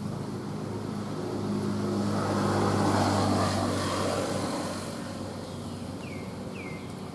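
Engine hum of a passing motor vehicle, swelling to a peak about three seconds in and then fading. Two short falling chirps come near the end.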